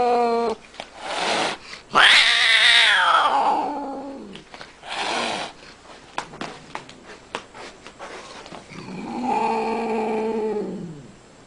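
Domestic cat yowling: a long, drawn-out call about two seconds in that falls in pitch, and another long call near the end. Short noisy bursts and scattered light clicks come between the calls.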